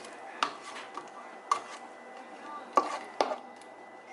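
Kitchen dishes and utensils being handled: several separate sharp knocks and clacks on a counter, the loudest about three seconds in.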